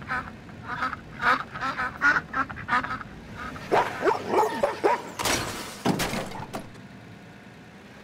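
Ducks quacking in a quick series of calls, then a yellow Labrador retriever howling, its pitch bending up and down, followed by a short loud rush of noise.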